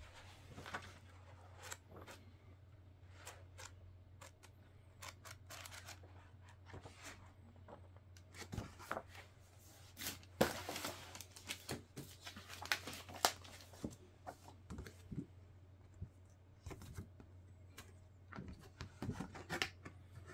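Packaging being handled during an unboxing: irregular rustling, scraping and tearing of plastic and cardboard, with scattered clicks and knocks, busiest around the middle and near the end. A steady low hum runs underneath.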